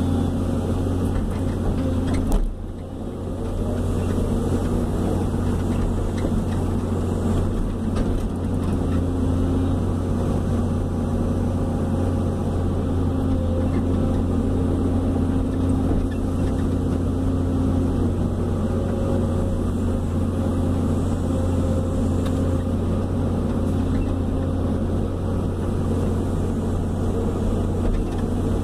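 Hydraulic excavator's diesel engine running steadily, heard from inside the operator's cab while the boom and bucket are worked, its note rising and falling a little with the load. A single sharp knock about two seconds in.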